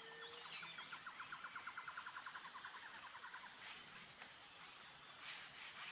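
Faint outdoor nature ambience: a rapid trill of evenly repeated chirps lasting about three seconds, over a thin steady high-pitched drone.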